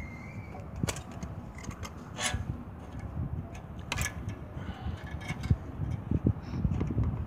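A petrol generator's carburetor being worked off its intake mounting studs by hand, with metal clicks and light scraping; the sharpest clicks come about a second, two seconds and four seconds in, over a low rumble.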